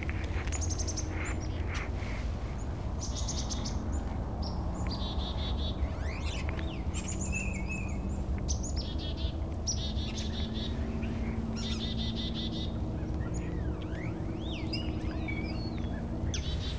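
Small songbirds calling, chickadees among them: repeated bursts of quick, buzzy, high notes every second or two, with scattered whistles and chips, over a steady low background rumble.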